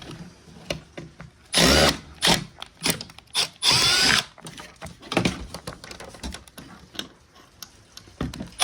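Power drill used as a screwdriver, backing out screws that hold a TV's speakers, in two short bursts of whirring about one and a half and three and a half seconds in, with clicks and light knocks between.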